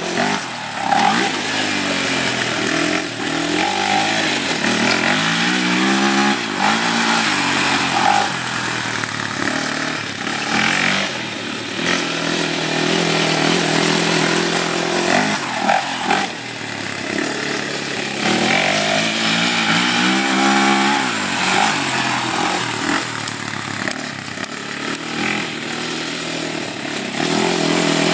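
Honda TRX400EX quad's single-cylinder four-stroke engine being ridden hard, revving up and dropping back again and again as the throttle is worked. Quick up-and-down sweeps in pitch come about six and twenty seconds in.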